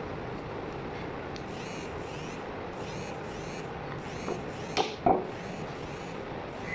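Steady background hiss, then three quick sharp knocks a little past four seconds in, the last the loudest with a brief metallic ring: a steel butcher's blade striking a wooden chopping block while trimming mutton leg.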